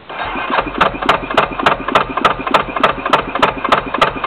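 Yamaha YFM350 Warrior's single-cylinder four-stroke engine, fitted with a hotter 450 cam, turning over with a slow, regular chugging beat of about three or four pulses a second, struggling to start, and cutting out just after the end.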